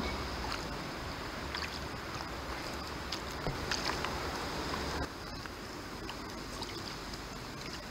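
Kayak paddling on calm canal water: soft paddle splashes and drips over a steady wash of water noise. A low rumble under it drops away about five seconds in.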